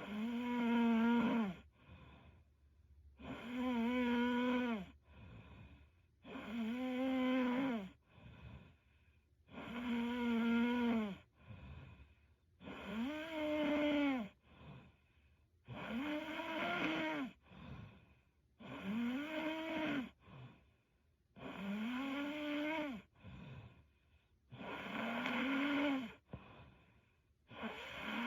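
A young woman snoring in her sleep in a steady rhythm of about one snore every three seconds, ten in all. Each snore is long and tonal with a slightly arching pitch, and is followed by a softer, shorter breath.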